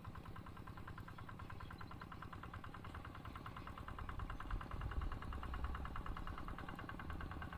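A small engine running steadily at idle, with a rapid, even pulse.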